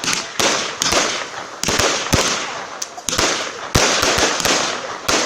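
Fireworks going off: a quick run of about nine loud bangs, irregularly spaced, each trailing off into a crackling hiss.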